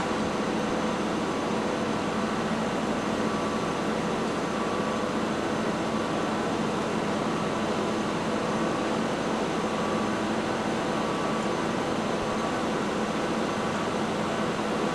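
Steady mechanical drone with a few constant hum tones, from the heavy self-propelled carriers and their machinery sliding a large steel bridge girder into place.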